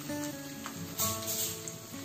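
Background music of plucked acoustic guitar, with held notes changing every half second or so, and a brief hiss about a second in.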